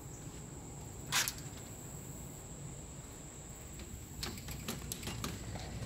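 Crickets chirping outdoors as one steady, high-pitched trill, with a short rustle about a second in. Near the end come a few light clicks and knocks from a sliding glass door being handled.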